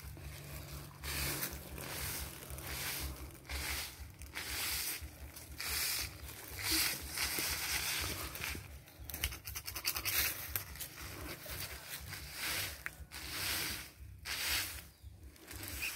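Leafy branch swept across a concrete tomb slab: irregular brushing swishes, roughly one a second, over a low rumble.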